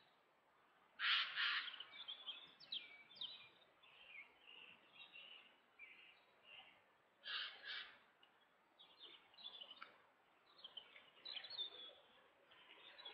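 Forest birds calling and singing: a string of short high chirps and phrases, with two louder, rougher calls about a second in and about seven seconds in.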